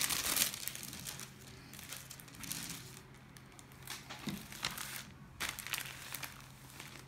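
Clear plastic deli bag of sliced cooked ham crinkling in irregular bursts as it is handled to pull out another slice. It is loudest in the first half-second, with further short crinkles later on, over a faint steady low hum.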